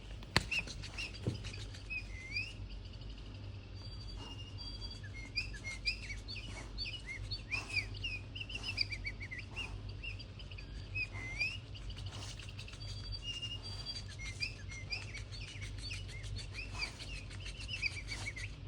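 Birdsong-like chirping and twittering: many short, varied chirps that glide up and down and overlap almost continuously, over a steady low hum.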